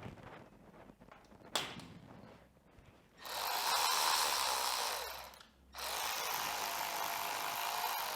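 Handheld power driver run twice, a few seconds each time, with a click about a second and a half in, backing out the bolts that hold the dirt bike's side plastic.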